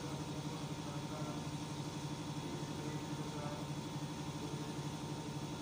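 A steady low mechanical hum, unchanging in level.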